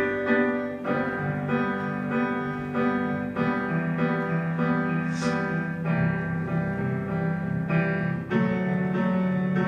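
Piano accompaniment playing sustained chords, a new chord struck about once a second, with no voice over it.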